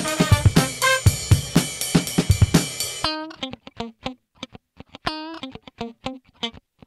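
Background music with a drum beat and guitar. The drums cut off suddenly about three seconds in, leaving sparse single plucked notes.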